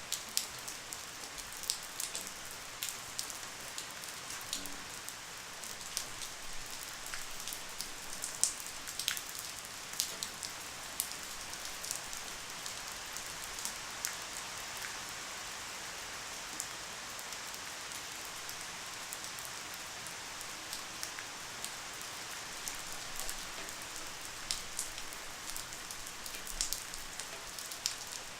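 Light rain falling steadily: an even soft hiss with many scattered sharp taps of individual drops.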